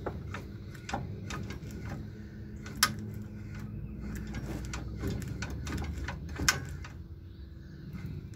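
Scattered metallic clicks and clinks from hand work on a truck's drum-brake assembly, with two sharper knocks, about three seconds in and again about six and a half seconds in, over a steady low hum.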